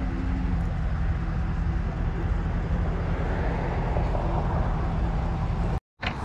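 Pickup truck engine running steadily while the truck tows a boat trailer at low speed, a low hum with road and wind noise; it cuts off suddenly near the end.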